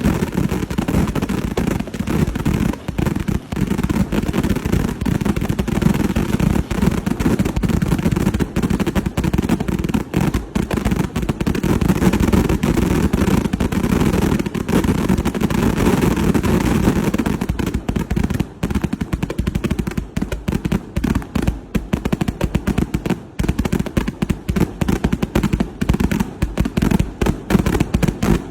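Fireworks going off in a dense, continuous barrage: rapid crackling reports over a deep rumble of bursting shells, the cracks coming thick and fast like machine-gun fire, growing more rapid and distinct in the second half.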